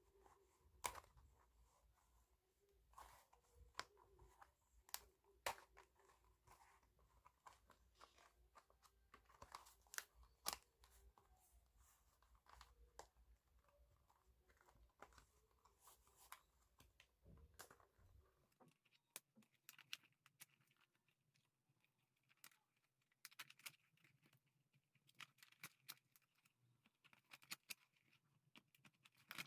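Faint paper tearing and rustling with scattered sharp clicks as a spiral notebook is pulled apart, its pages and cover worked off the wire spiral. A low hum underneath stops about two-thirds of the way through.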